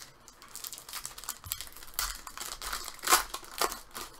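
Foil trading-card pack wrapper crinkling and tearing as it is opened by hand, in a run of short crackles, the loudest about three seconds in.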